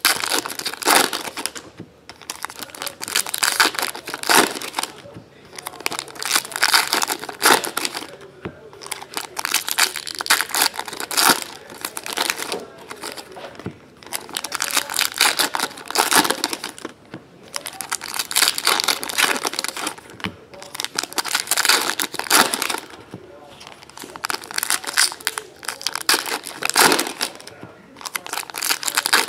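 Foil wrappers of trading-card packs crinkling and tearing as they are opened and handled, in repeated bursts a second or two apart.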